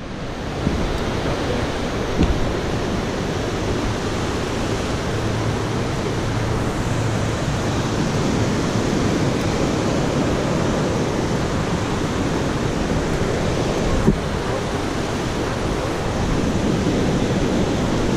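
Steady rushing of a fast mountain creek, an even wash of noise. A single sharp knock about 14 seconds in.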